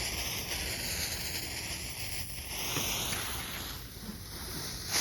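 Firework fuse hissing as it burns, fading about two and a half seconds in. Right at the end, the lit novelty firework starts up with a much louder hiss.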